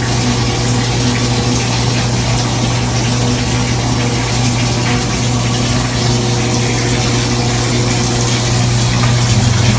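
Shower water running steadily, with a constant low hum beneath it.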